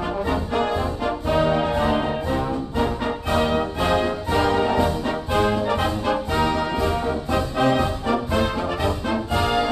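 Background instrumental music led by brass (trumpets and trombones) with a steady beat.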